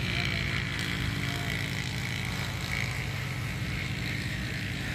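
A steady, low engine-like rumble runs throughout, with a fainter higher hiss over it.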